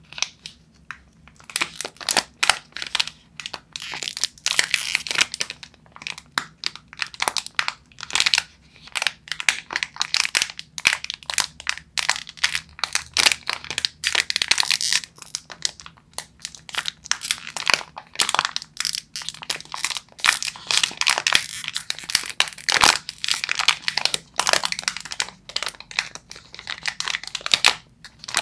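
Crinkly plastic snack wrapper around a chocolate-coated marshmallow biscuit being squeezed and crumpled in the hands: a dense, irregular run of crackles and rustles, with one sharper crackle about two-thirds of the way through.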